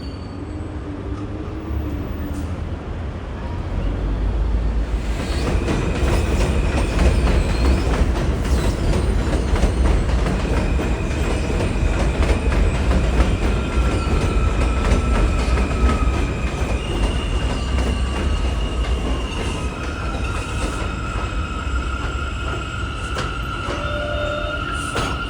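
New York City subway train running through the station: a low rumble that grows louder about four seconds in, with steady high-pitched wheel squeals that shift in pitch as it goes.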